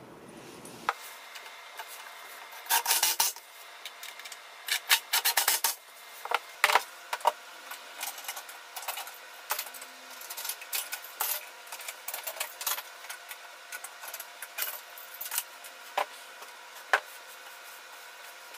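Clatter of hands working on a wooden box and its metal corner clamps: scattered sharp clicks, knocks and scrapes, in loud clusters around three and five seconds in and a single sharp knock near the end.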